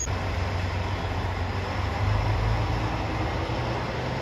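JR Shikoku 1000 series diesel railcar running at a station platform: a steady low diesel engine drone with rail and running noise, swelling slightly about two seconds in.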